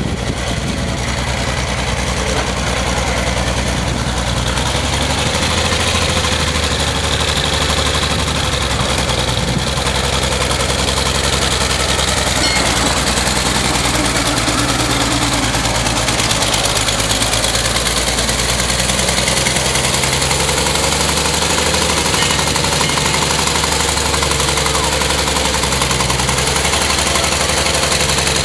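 1926 Buick fire truck's six-cylinder engine running at low speed while the truck is driven slowly, its note shifting slightly a few times as the throttle changes.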